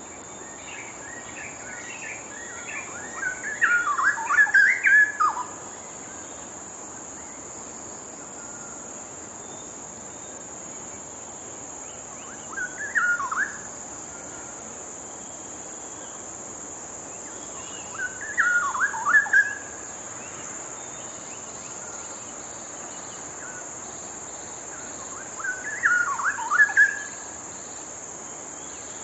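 Straw-headed bulbul (cucak rowo) singing four loud, rich bubbling phrases a few seconds apart, the first the longest, over a steady high insect drone.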